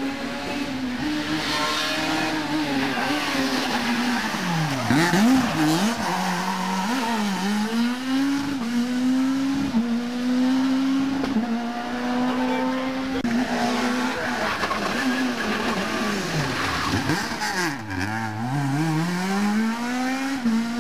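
Rally car engine revving hard at full throttle, the note stepping through gear changes. Twice the revs drop sharply and climb again.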